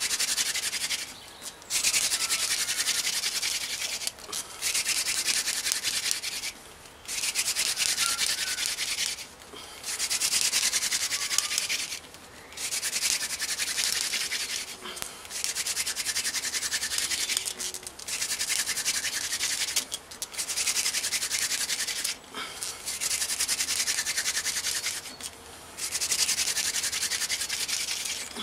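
Hand-drill friction fire: a 22 cm dense-flowered mullein spindle spun between the palms in a linden hearth board, making a dry rasping grind. It comes in runs of about two seconds, broken by short gaps as the hands go back to the top of the spindle, with the socket already smoking.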